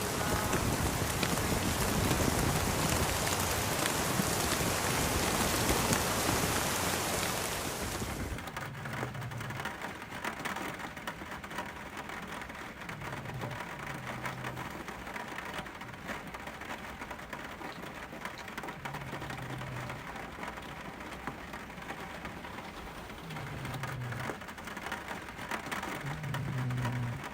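Steady heavy rain falling for about eight seconds, then softer rain after an abrupt change, with a few short low rumbles.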